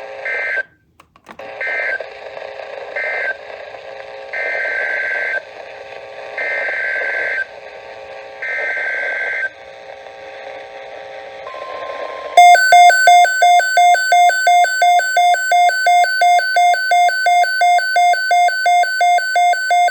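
NOAA Weather Radio alert coming in through static on a Midland WR120 weather radio. Three short warbling SAME data bursts, the end-of-message codes of the previous warning, are followed by three longer bursts, the header of a new severe thunderstorm watch, then a brief steady tone. About twelve seconds in, the receiver's own loud pulsing alert beep starts, about three to four beeps a second, and runs for roughly eight seconds.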